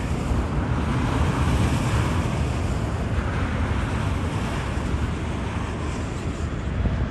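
Steady rushing rumble of a Boeing 747-8's four GEnx jet engines as the airliner comes in on final approach, mixed with wind buffeting the microphone.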